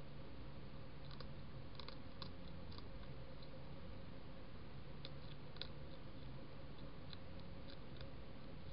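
A hedgehog eating dry food pellets from a plate: faint, irregular crunching clicks in small clusters, over a steady low hiss and hum.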